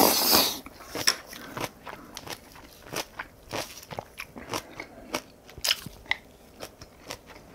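Close-miked chewing of a mouthful of kimchi and raw beef: wet, crunchy mouth clicks and smacks at an irregular pace, loudest as the bite goes in at the start.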